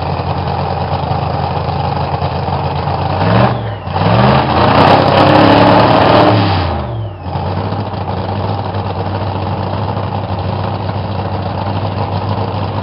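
Drag racing car engines idling with a steady low hum. About three and a half seconds in, an engine is revved hard with rising and falling sweeps for about three seconds, the loudest part, then it drops back to the idle.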